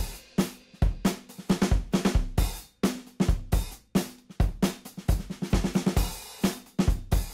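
Background music: a drum kit playing on its own, with kick, snare and cymbal hits and brief silences between them.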